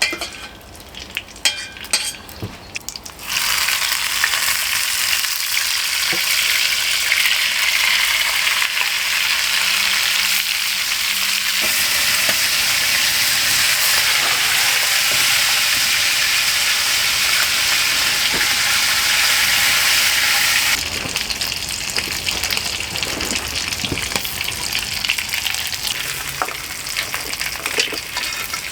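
Crumbed rabbit pieces frying in hot lard. A few crackles, then a loud sizzle that starts suddenly about three seconds in and holds steady, dropping to a quieter crackling sizzle about twenty seconds in.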